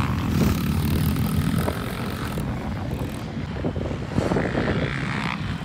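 Small dirt bike engines running and revving as riders circle the track, loudest as a mini dirt bike passes close at the start, then easing off as the riders move away.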